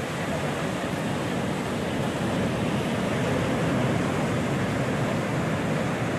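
Ocean surf churning and washing over rocks, a steady rush that swells a little around the middle.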